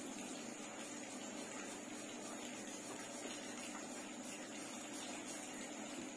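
A graphite pencil scratching softly on paper in short shading strokes, over a steady background hiss with a faint hum.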